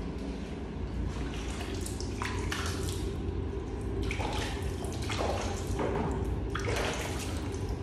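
Water splashing in a series of short splashes as a hand scoops it from a plastic basin and pours it over a baby monkey during a bath.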